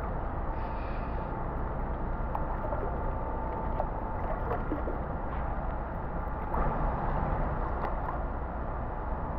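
Pool water sloshing and splashing close to the microphone while swimming, over a steady low rumble, getting a little louder about two thirds of the way in.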